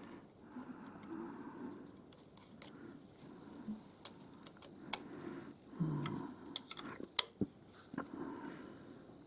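Scattered light metallic clicks and clinks of hand tools and metal setup parts being handled on a milling machine, with soft shuffling noise between them.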